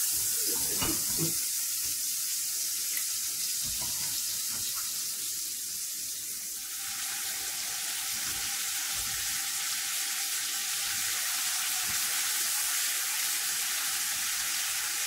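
Butter and rapeseed oil sizzling in a frying pan, a steady hiss. About seven seconds in, the sizzle grows louder and fuller as lobster tails go into the hot fat to fry.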